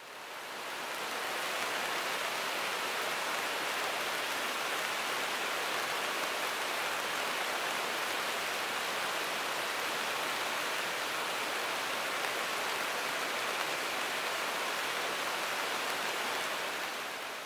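Steady rushing of a mountain river's white-water rapids, running high and fast after heavy rain. It fades in at the start and out near the end.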